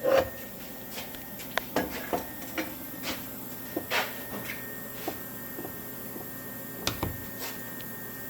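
Irregular metal clinks and knocks of cast iron parts and tools being handled on a workbench before welding, the loudest right at the start, over a faint steady hum.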